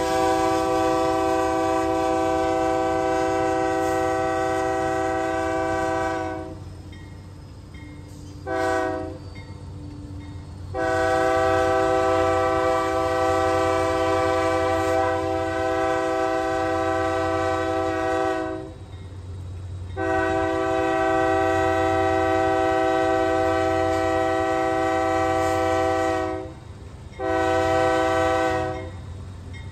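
Multi-note air horn of a Kansas City Southern de México diesel freight locomotive sounding a series of long blasts, with one short toot about nine seconds in. Under it runs the low, steady rumble of the train's diesel locomotives working hard.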